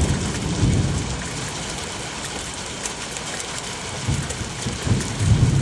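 Pea-sized hail and rain pelting down in a steady hiss, with deep low rumbles swelling in the first second and again near the end.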